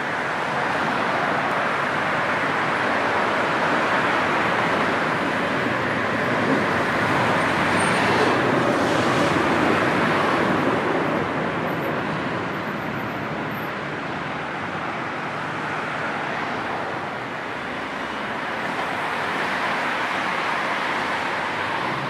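Street traffic noise: a steady rush of passing cars, swelling as a vehicle passes about halfway through and rising a little again near the end.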